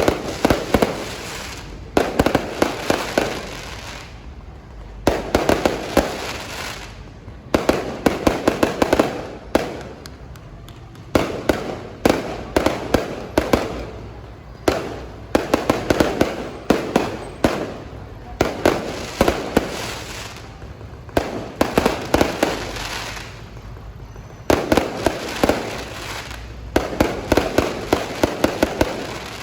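Fireworks display: clusters of rapid sharp bangs every few seconds, with crackling in between.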